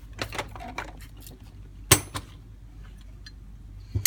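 Metal carburetor parts and hand tools handled on a workbench: light rattles and clicks, with one sharp metallic clink about two seconds in and another knock at the end.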